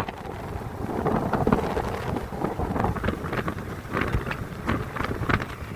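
Wind buffeting the microphone outdoors, an uneven low rumble with scattered crackles.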